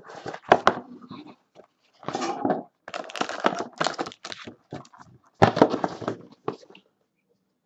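Hands opening a Panini Court Kings basketball card box and tearing open the foil pack inside: crinkling and rustling of the wrapper and cardboard in irregular bursts, with a few knocks as the box is handled.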